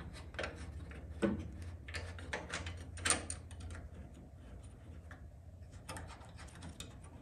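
Scattered light clicks and knocks of a power brake booster and master cylinder being held and shifted against the car's firewall and bracket, the sharpest about one and three seconds in, over a steady low hum.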